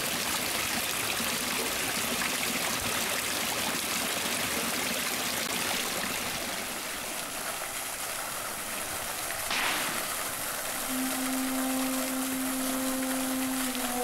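Fountain water splashing and trickling steadily, with a brief louder splash about two-thirds through. A steady low musical tone comes in near the end.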